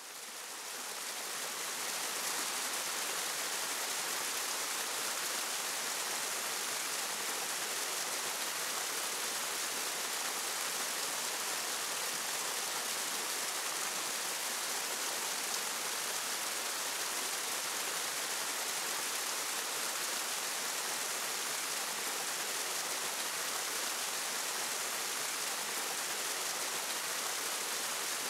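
River water pouring over a low-head dam's spillway and churning below it: a steady rushing hiss, strongest in the highs, that fades in over the first second or two.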